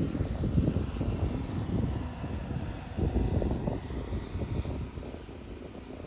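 Extreme Flight 85-inch MXS aerobatic RC plane in flight, its StinGRX 85 electric motor spinning a three-blade 24x10 Xoar propeller. A high whine slides slowly down in pitch over a gusty low rumble.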